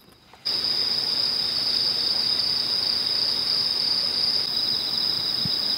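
Crickets chirring steadily in a continuous high-pitched trill, starting suddenly about half a second in.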